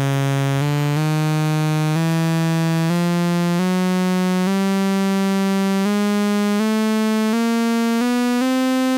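STG Soundlabs .VCO analog sawtooth oscillator holding a steady buzzing tone while its digitally quantised semitone control is turned. The pitch climbs in about a dozen distinct semitone steps, roughly one octave, with no glide between them.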